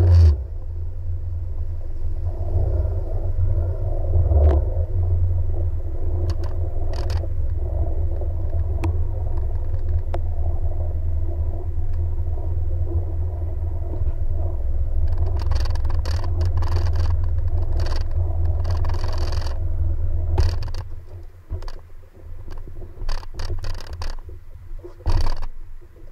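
Jet ski engine running with a steady low rumble. About twenty seconds in the rumble drops away, leaving scattered knocks and scrapes.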